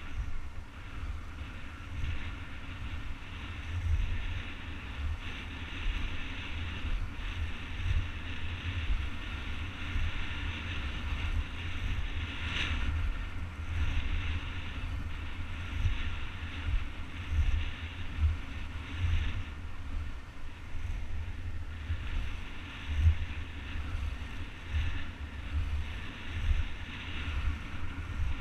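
Wind buffeting the action camera's microphone in a gusty low rumble, over the steady hiss of skate wheels rolling on asphalt. A single sharp click about halfway through.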